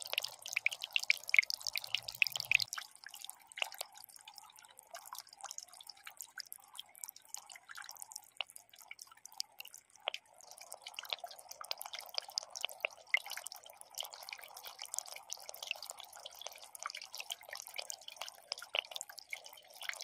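Water trickling and dripping over a miniature concrete waterfall fountain, a steady splash full of quick drips and patters.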